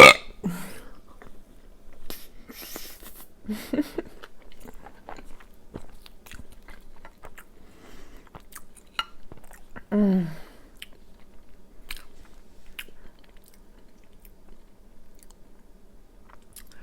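A woman chewing a big mouthful of food close to the microphone, with many small wet clicks and smacks of her mouth. There is a loud sudden sound right at the start and a couple of brief pitched vocal sounds, about 4 and 10 seconds in.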